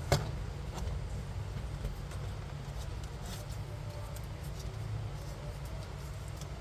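Handling of a smartwatch box and packaging during unboxing: one sharp click just after the start, then scattered faint clicks and rustles over a steady low hum.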